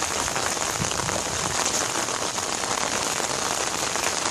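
Steady rain falling: an even hiss of many drops landing, with no let-up.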